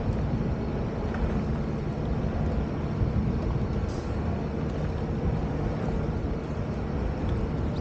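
Sea-Doo jet ski engine running steadily at low speed, a constant low hum with no changes in pitch.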